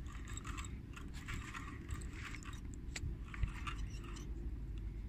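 Fixed-spool spinning reel being wound in to retrieve a hooked fish: irregular scratchy ticking from the reel and line handling over a steady low rumble, with one brief knock about three and a half seconds in.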